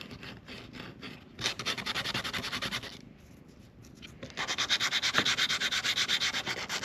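Sandpaper rubbed back and forth in quick, even strokes: hand sanding. A short run of strokes, a pause of about a second, then steady sanding again.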